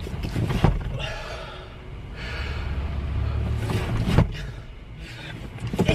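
A man's heavy, gasping breaths and huffs, coming in gusts, with a few sharp knocks: one about half a second in, one about four seconds in and one near the end.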